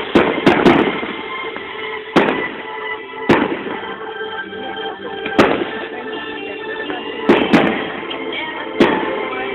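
Fireworks shells bursting in sharp bangs, about nine of them at uneven intervals, with music playing throughout.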